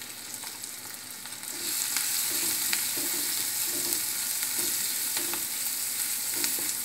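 Cashews, green chillies and curry leaves sizzling in hot ghee in a pan, the tempering for pongal. The sizzle gets louder about a second and a half in as a wooden spatula starts stirring, with small scrapes and taps of the spatula against the pan.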